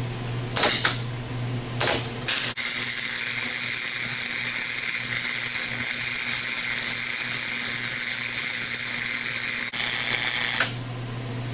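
MIG welder arc on steel: three short tack bursts in the first couple of seconds, then one continuous weld of about eight seconds with a brief break near its end.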